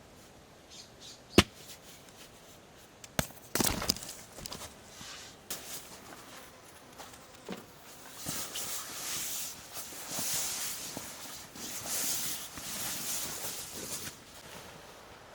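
A few sharp knocks and clatters, then several seconds of rustling.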